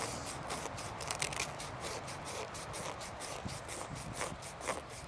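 Sandpaper scraping back and forth around the freshly cut end of a PVC pipe in quick repeated strokes, deburring the pipe end before it is glued into a coupling.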